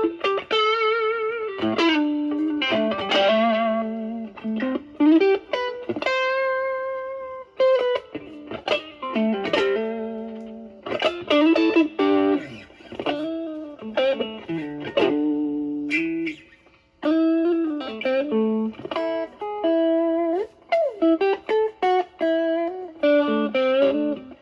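Stratocaster electric guitar played through a Proco Brat distortion pedal (OP07 chip) into a Marshall Valvestate amp, in a cleaned-up, lightly driven tone. It plays single-note lead lines with string bends and vibrato, mixed with short chord stabs and brief pauses.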